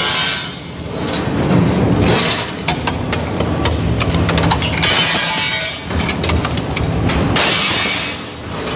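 Heavy crushing machine breaking up material: dense cracking and crunching with many sharp snaps over a low machine rumble.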